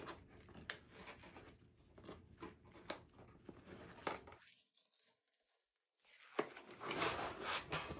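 Cardboard box being worked loose and pulled out from inside a PC case: scattered light knocks and rubbing, a short dead-silent gap about halfway, then louder scraping and rustling of cardboard near the end.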